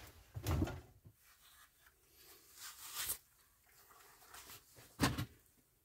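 A few brief knocks and scrapes of plastic seed trays and plant pots being moved about on a wooden potting bench, with quiet gaps between; the loudest comes near the end.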